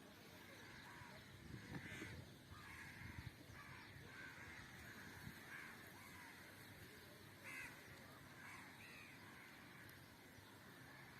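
A faint series of short animal calls, about eight of them at irregular intervals.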